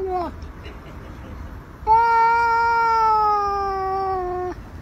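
Black-and-white cat yowling. The end of one call falls away just after the start, then about two seconds in comes one long drawn-out call that slowly sinks in pitch and stops abruptly.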